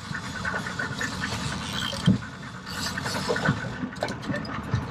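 Fishing reel clicking rapidly as line is wound in, over the steady drone of the boat's motor and water.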